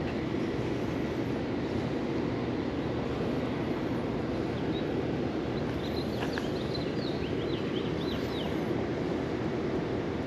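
Steady outdoor rushing noise, with a few short high chirps in the middle.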